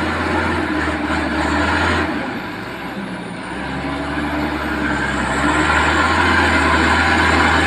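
Motor vehicle engine running steadily, easing off briefly about two seconds in and then building up again.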